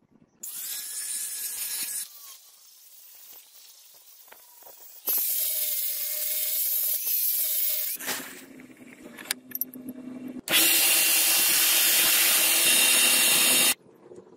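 A power tool runs in two short separate bursts, each a hiss with a steady whine. Then a pressure washer hums and its water jet sprays onto a steel knife blade clamped in a vise, a loud steady hiss lasting about three seconds that cuts off sharply.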